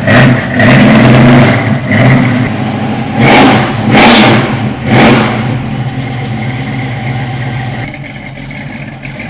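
Ford Mustang engine revved hard in several short blips, then settling into a steady idle about halfway through.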